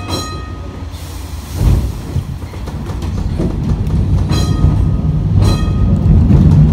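W class electric tram running along the track, with a low running rumble that grows louder through the second half. Three sharp, ringing metallic clanks come from the wheels on the rails: one at the start, two more about four and five seconds in.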